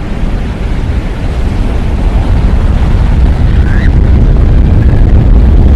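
Loud, deep rumbling noise swelling steadily, a cinematic sound effect in an outro title sequence.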